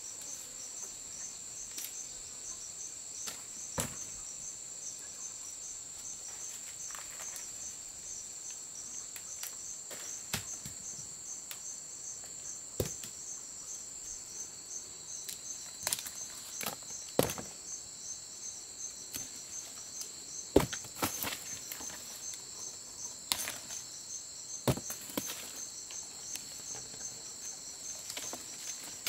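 Steady high-pitched insect chorus with a fast pulsing trill, broken by scattered sharp knocks and clicks that come more often in the second half.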